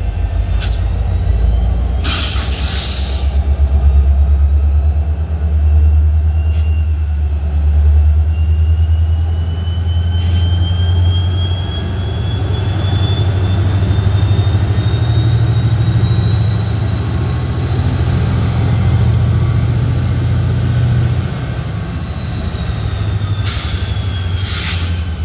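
BNSF diesel freight locomotives and train rolling past close by, with a steady deep engine rumble and the run of wheels on rail. A thin whine slowly rises in pitch through the middle. There are two short bursts of hiss, one about two seconds in and one near the end.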